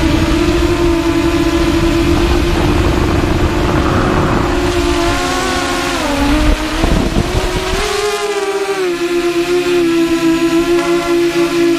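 Electric motors and propellers of a multirotor drone, heard from on board: a steady whine that dips in pitch about six seconds in and rises again about two seconds later. Under it a low rushing noise runs until about eight seconds in, then drops away.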